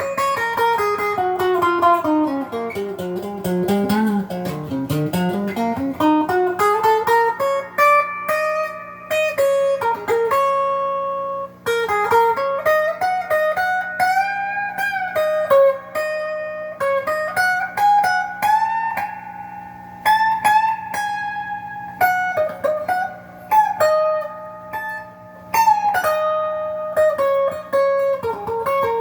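Clean electric guitar through an amp: a GearIt Telecaster-style guitar's stock bridge humbucker, coil-split to single-coil mode with only its front coil on. Picked single-note runs glide down and back up, then give way to held notes and chords.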